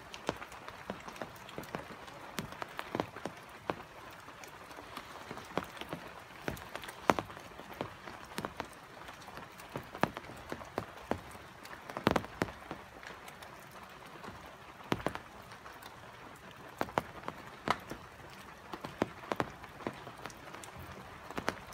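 Rain falling: a steady light hiss with many irregular sharp drops striking close by.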